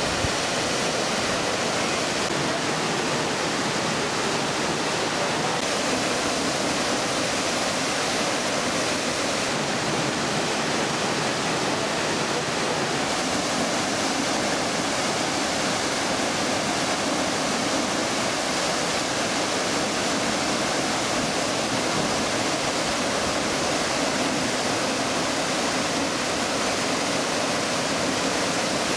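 Waterfall: a tall cascade of water plunging down a rock face, a steady, unbroken rush.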